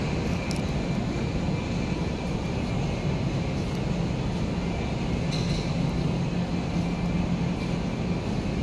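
Steady low drone of indoor background noise, with a hum that holds one pitch throughout.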